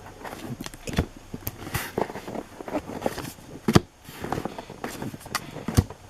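Baseball cards and foil pack wrappers being handled: irregular taps and clicks with some crinkling.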